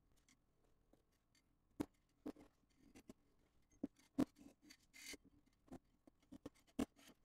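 Metal scraper prying stubbornly stuck resin prints off a 3D printer's build plate: faint sharp clicks and snaps, about one or two a second, as pieces break loose, with a short scrape about five seconds in.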